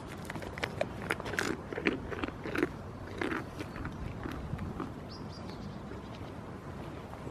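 Goat nibbling and chewing right at the microphone: a run of irregular, crunchy bites through the first three and a half seconds, then it goes quieter.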